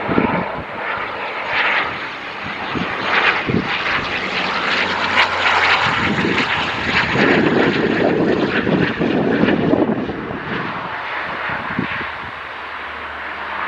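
QantasLink Dash 8 Q400 turboprop landing: its Pratt & Whitney PW150A engines and six-bladed propellers give a steady rush of propeller and engine noise. It grows louder soon after touchdown, about halfway through, and eases off near the end as the airliner rolls out.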